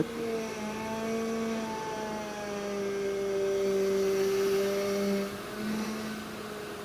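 2007 Honda Odyssey's power steering pump buzzing under load as the steering wheel is turned, a steady droning whine whose pitch drifts slightly and grows louder in the middle. It is the sign of a failing power steering pump, which the mechanic takes for the most likely cause.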